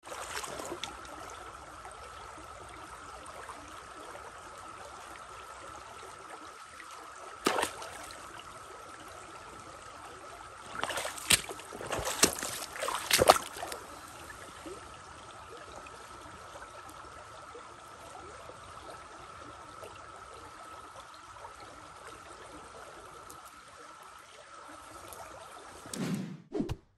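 Shallow creek trickling steadily over stones, with a sharp splash about a quarter of the way in and a cluster of louder splashes around the middle as a hand plunges into the water.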